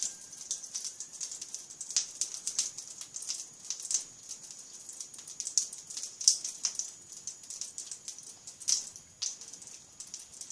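Butter crackling in a hot frying pan: an irregular patter of sharp pops and clicks over a steady high hiss.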